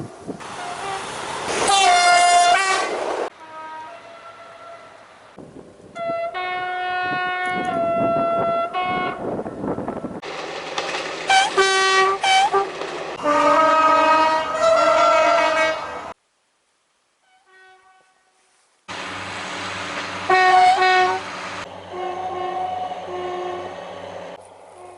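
A run of French train horns from several short recordings, one after another: two-tone blasts and short repeated toots over the rumble of passing trains. The sound cuts to silence for a few seconds about two-thirds of the way through.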